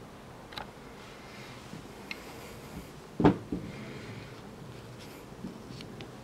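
A nylon webbing strap with a plastic side-release buckle being handled: soft rustling with a few light plastic clicks, and one louder knock about three seconds in.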